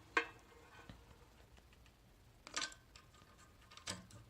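Small metal parts of an electronic safe's lock mechanism clicking and clacking as they are handled, three sharp knocks a second or so apart, the middle one a short rattle.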